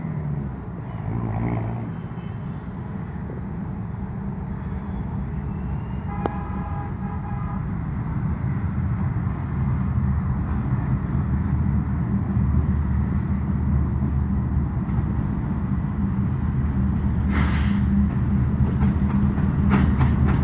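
GEU-20 diesel-electric locomotive approaching with a train, its engine drone growing louder as it nears. A short horn note sounds about six seconds in, and there is a brief hiss near the end.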